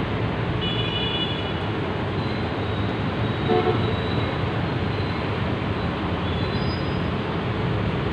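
Steady street traffic noise, with a short high-pitched vehicle horn toot about a second in and a brief louder sound near the middle.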